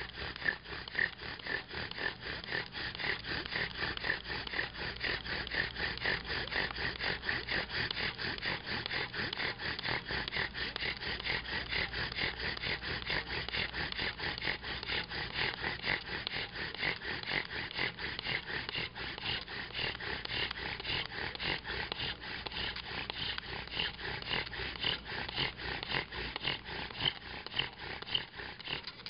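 Bow drill spinning a live oak spindle in an oak fireboard: fast, steady back-and-forth strokes of wood squeaking and grinding on wood, the squeak growing higher-pitched in the later part. This is the friction building hot wood dust in the notch toward a coal. It stops suddenly at the very end as the strokes cease.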